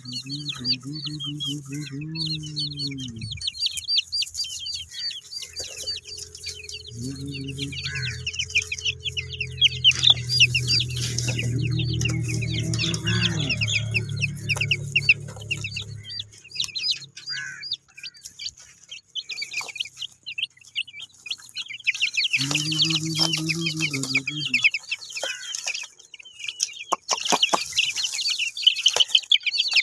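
Baby chicks peeping continuously in quick, high chirps, thickest in the first and last few seconds. Three times a lower, drawn-out pitched sound lasting a few seconds joins in.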